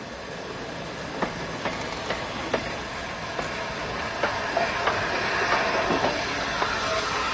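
Peppercorn A1 Pacific steam locomotive No. 60163 Tornado rolling slowly past close by, tender first, with sharp clicks of its wheels over rail joints at irregular intervals. The sound grows louder as the tender and driving wheels draw level.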